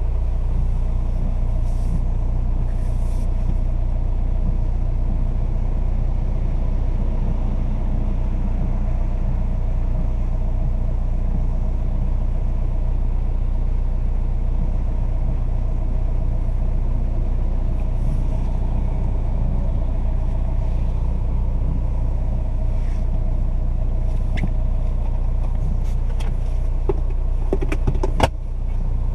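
Fiat Toro's 2.0 turbodiesel four-cylinder idling steadily, heard from inside the cabin. Near the end come a few sharp clicks as the hand-brake lever is worked.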